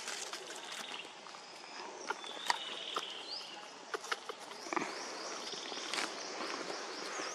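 Outdoor ambience of high, short chirps and a brief trill from small birds, repeated in quick runs, over a steady background hiss, with scattered soft rustles and taps from monkeys shifting on dry ground.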